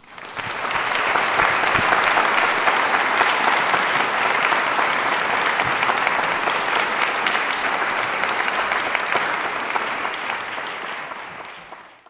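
Audience applauding, building up within the first second, holding steady, then dying away near the end.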